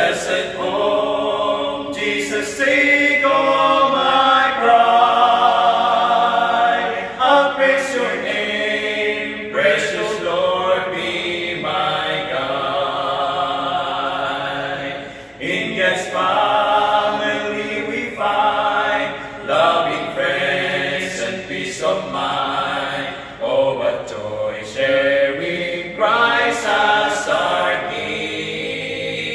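Male vocal quartet singing a cappella in harmony, several voices sustaining notes together in phrases, with a brief break about halfway through.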